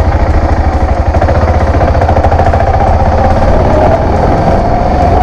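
BMW 650GS motorcycle engine running steadily while the bike rides along a gravel road, with a fast, even pulsing.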